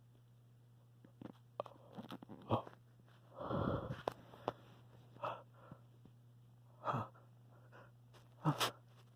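A person with a slight cold sneezing and hitching: a string of short, sharp breaths and sniffs, with one longer, fuller sneeze burst about three and a half seconds in.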